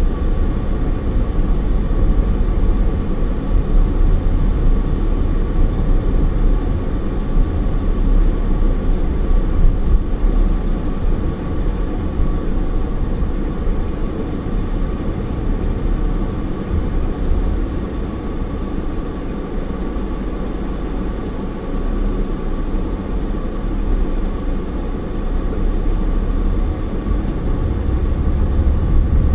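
Car driving at low speed, heard from inside the cabin: a steady low rumble of engine and tyres with a thin steady tone above it, a little quieter midway and growing louder near the end.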